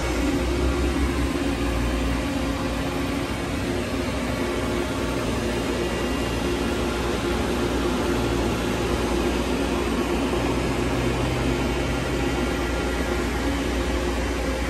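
Steady electrical hum and fan whir from a powered-up Doosan Puma TT1800SY CNC lathe, heard at its open electrical cabinet with the Fanuc servo and spindle drive amplifiers switched on.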